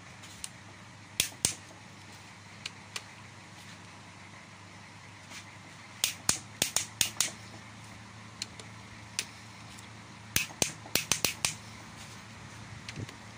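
Socket wrench clicking in short irregular groups of sharp metallic clicks as connecting-rod cap bolts are tightened to torque.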